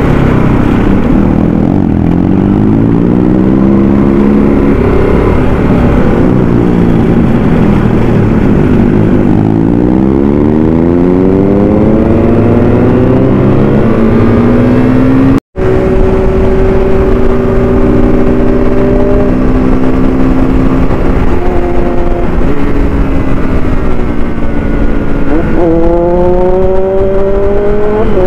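Triumph Daytona sport bike's engine under way, its pitch climbing as it revs up and dropping back between rises, over a steady rush of wind. It holds a steady note after a brief drop-out about halfway, then climbs again near the end.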